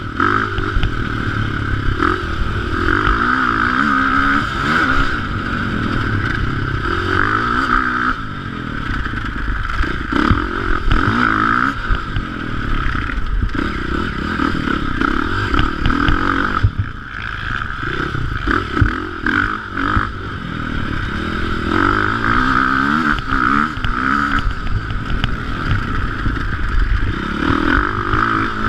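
KTM 500 dirt bike's single-cylinder four-stroke engine revving up and down over and over as it is ridden hard around a dirt track, heard close from a camera mounted on the bike. The throttle backs off briefly about halfway through.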